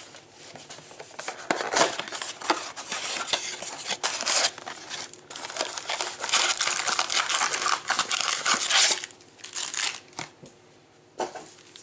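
Crinkling and tearing of trading-card packaging: a Bowman blaster box and its foil card packs being opened and handled, in irregular rustling bursts that fall quieter about nine seconds in.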